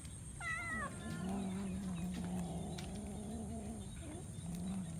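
Cats crowding for fish: one short, high, wavering meow about half a second in, over a low, drawn-out cat growl that pauses briefly and starts again near the end.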